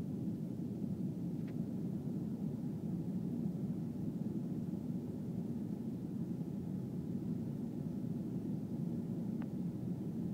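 Steady cabin noise inside an Airbus A320 airliner on approach: a dense low rumble of the engines and the airflow over the fuselage.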